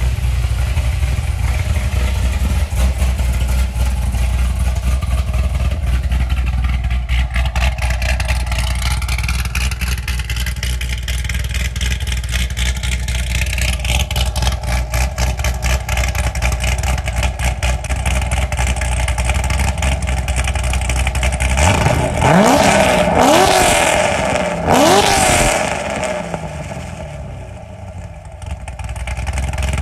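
C6 Corvette Z06's 7.0-litre LS7 V8 idling steadily from the exhaust. About 22 and 25 seconds in it is revved sharply twice, climbing and dropping back each time, before settling into idle again.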